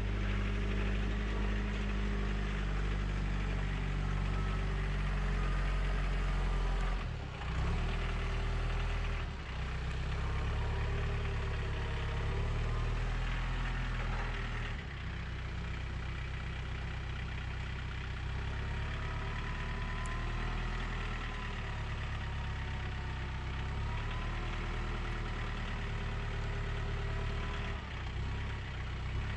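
A large engine running steadily at low revs, its pitch shifting slightly a couple of times.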